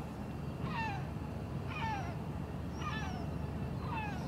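Gull calling repeatedly, about once a second, each cry falling in pitch, over a steady low rumble.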